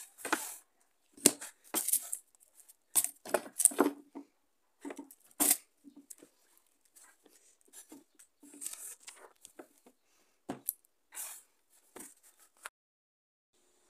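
Plastic containers being handled and moved on a table: irregular knocks, clicks and rustling of plastic wrapping, busiest in the first few seconds, ending with a sharp click near the end.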